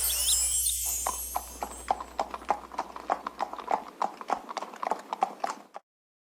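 Cartoon hoofbeats: a pony's clip-clop trotting, about four steps a second, after a second of hissy noise, stopping suddenly near the end.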